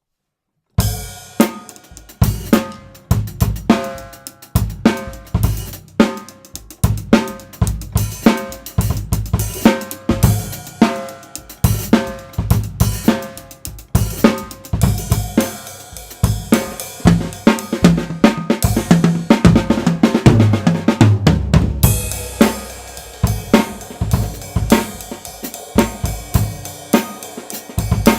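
Tama Swingstar drum kit with Meinl cymbals played in a groove of snare, bass drum and hi-hat, starting about a second in. About three-quarters through, a run of low drum hits leads into heavier cymbal playing. Recorded through a single Blue Yeti USB microphone.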